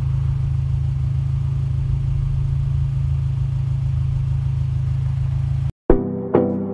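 Toyota Celica GT-S's 2ZZ-GE four-cylinder engine idling, a steady low hum. It cuts off suddenly just before the end, and piano music begins.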